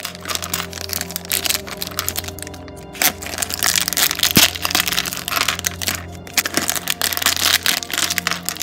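Clear plastic parts bags crinkling and crackling as they are handled and opened, the loose plastic pieces inside rattling, over steady background music.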